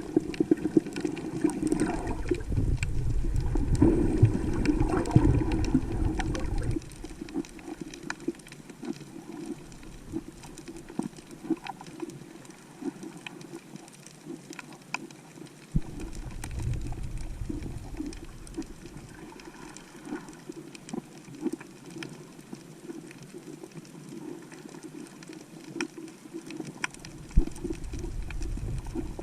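Seawater sloshing and gurgling around a snorkelling camera, with a low rumble in stretches (the first several seconds, again about midway and near the end) and faint crackling throughout.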